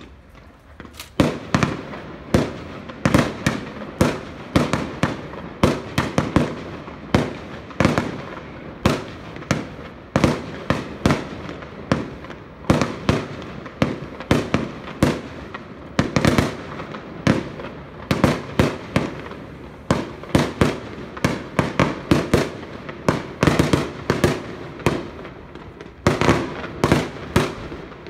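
Fireworks display: a rapid, unbroken barrage of sharp bangs, several a second, starting about a second in.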